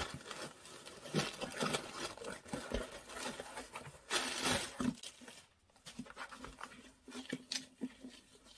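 Cardboard shipping box being opened and handled, with plastic packaging rustling and crinkling and the flaps and contents tapping irregularly; a louder burst of rustling comes about four seconds in.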